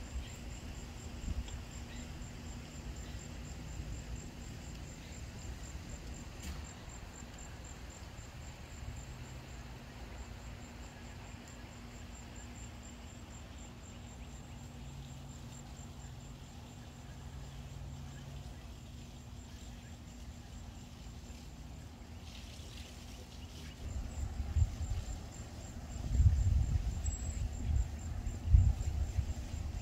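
High-pitched insect trill, a fast steady pulsing that runs on with a short break about three-quarters of the way through. Low rumbling bumps come in near the end.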